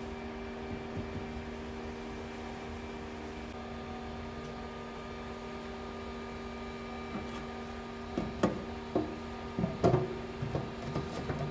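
Electric coolant pump humming steadily as it circulates fresh coolant through the car's cooling system. In the last few seconds several sharp knocks and clatters sound over it.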